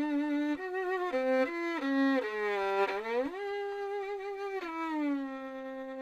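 Solo violin playing a slow melody: a held note, then a few short notes stepping up and down, a slide down and back up, and a long held low note from about five seconds in.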